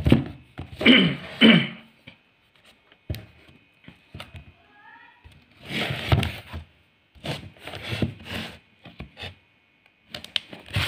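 Hands handling and turning over a taped cardboard shipping box: short bursts of rubbing and rustling against the packaging, loudest in the first two seconds, with a single light knock about three seconds in.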